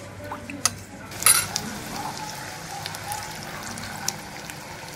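A metal spoon clinks a couple of times against a plate, then cornflour water goes into a hot pot of sauce and shallots with a loud splash about a second in, followed by steady sizzling and bubbling as it is stirred.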